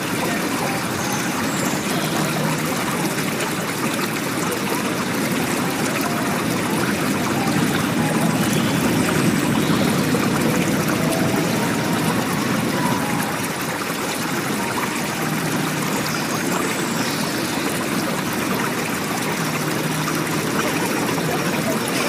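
Water running and splashing steadily, swelling a little about eight to eleven seconds in.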